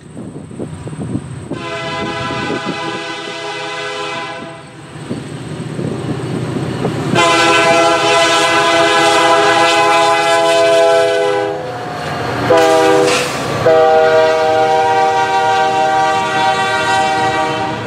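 Diesel freight locomotive's air horn sounding the grade-crossing signal as the train approaches: two long blasts, a short one and a final long one. This is the standard warning for a public road crossing ahead. The locomotive's engine and the train's running noise rumble underneath.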